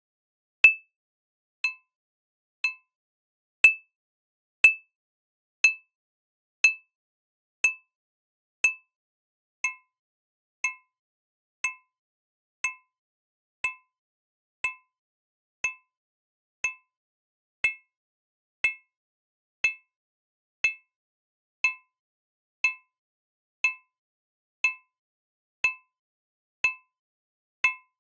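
Synthesized impact sounds of a 23 cm dinner plate from a modal sound model, struck about once a second. Each strike is a brief, bright ring of a few pitches, and the blend of those pitches shifts as the struck point moves across the plate.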